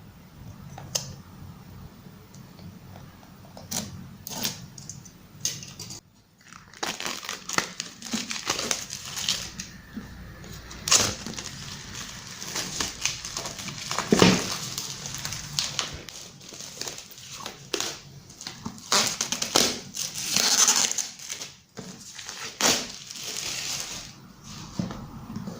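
Packaging crinkling and tearing as a headphone box is unwrapped by hand, with scattered clicks and knocks of the box being handled; the handling gets busier and louder after about six seconds.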